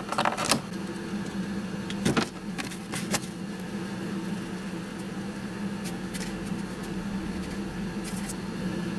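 A steady low hum, with a few short clicks scattered through it.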